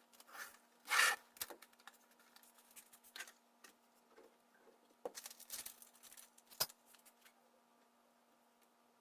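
Hands working on a 3D printer's frame to move its Z limit switch: brief rustles, scrapes and clicks, loudest about a second in, with a sharp click just before seven seconds. A faint steady hum sits underneath.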